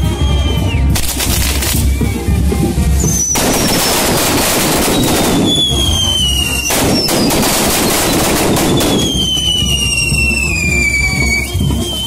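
Fireworks going off at close range: dense crackling and popping, with several whistling fireworks whose pitch falls over a couple of seconds each. Music plays underneath.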